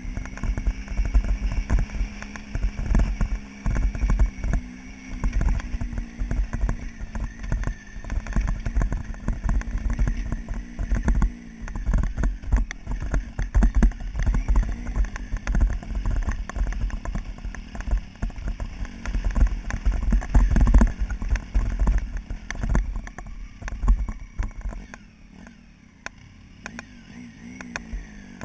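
Motorcycle engine running while the bike is ridden over a rocky dirt track, with constant irregular knocks and rattles and heavy low rumble as the bike and its handlebar-mounted camera are jolted over the stones. It gets quieter a few seconds before the end.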